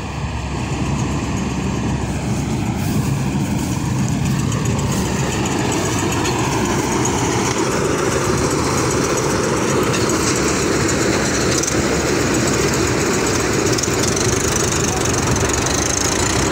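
Mahindra tractor's diesel engine running as the tractor, with its mounted harvester, drives over steel ladder ramps. It gets louder over the first few seconds as it comes closer, then runs steadily.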